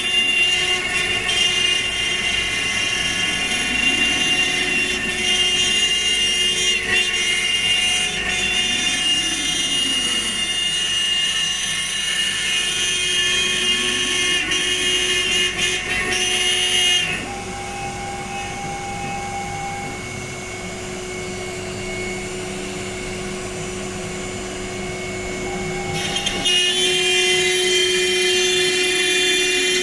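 CNC router spindle running with a high steady whine as it cuts speaker-box panels, while lower motor tones rise and fall in slow arcs as the axes move. About 17 s in the sound drops to a quieter steady whine, and near 26 s the louder cutting sound returns.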